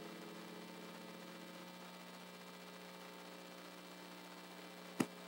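The last electric piano chord dies away in the first second or so, leaving a steady electrical mains hum. A single sharp click sounds near the end.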